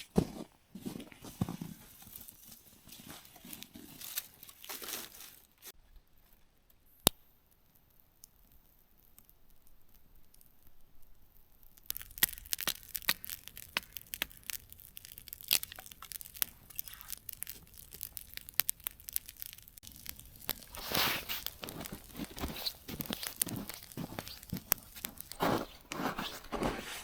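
Irregular tearing and crinkling with scattered sharp clicks. It goes quiet for several seconds about a quarter of the way in, broken by one sharp click, then returns denser and louder.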